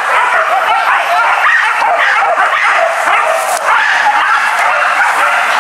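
A pack of hunting dogs barking and yelping at once, many overlapping calls without a pause.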